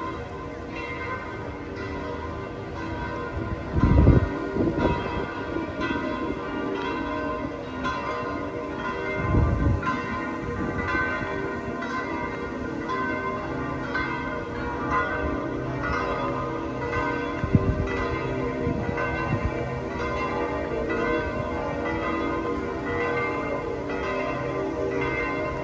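Church bells of St. Peter's Basilica pealing, many bells struck again and again so their long ringing tones overlap. A few low thumps stand out, the loudest about four seconds in.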